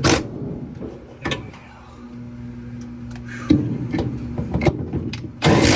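Knocks and clanks of parts being handled and fitted on a washing machine's drive assembly. A steady low hum runs underneath through the middle, and a short loud rasping noise comes near the end.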